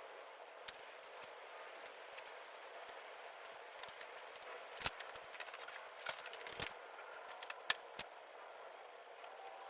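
Scattered, irregular clicks and knocks of hand tools and fasteners as pins and bolts are worked out of an ATV's plastic drive shaft cover, over a steady faint hiss; the sharpest knocks fall about five seconds in and again between six and eight seconds in.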